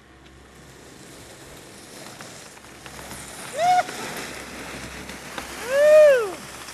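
Skis sliding over packed snow as the camcorder operator skis downhill, a steady hiss with wind on the microphone, building from the start. Two short whooping calls rise and fall in pitch, one about halfway through and a longer, louder one near the end.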